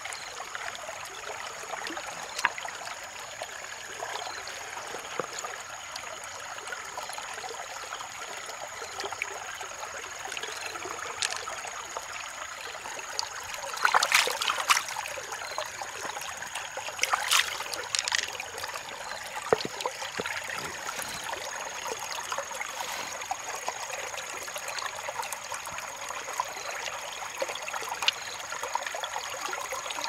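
Shallow stream water trickling steadily over rocks, with a faint steady high tone above it. A few sharp clicks and scrapes come in two clusters about halfway through.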